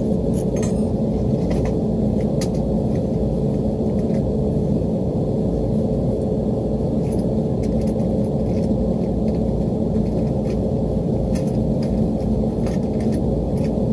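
Steady drone of rooftop HVAC machinery running: a low rumble with a steady mid-pitched hum over it, and a few faint light clicks.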